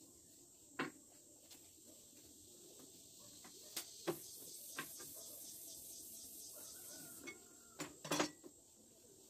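Light knocks and clicks of a small wooden piece and a tape measure being handled and set down on the metal table of a miter saw, which is not running; faint rapid ticking in the middle, and a quick cluster of knocks near the end, the loudest part.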